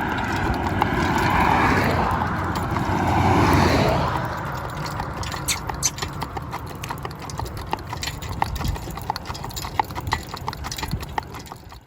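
Horse's hooves clip-clopping in quick, irregular strikes, following a swelling rush of noise in the first few seconds.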